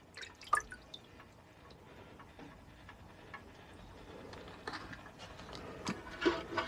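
A few light clicks and taps, spaced irregularly, of small metal carburettor parts being picked over and set down.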